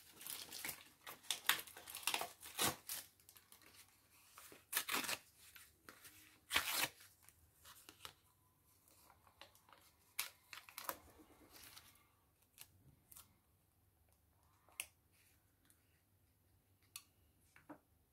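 Paper nail forms being peeled off their sticky backing sheet and handled: a run of short crinkling, tearing rustles. They come thick and fast at first and thin out to a few faint ones after about twelve seconds.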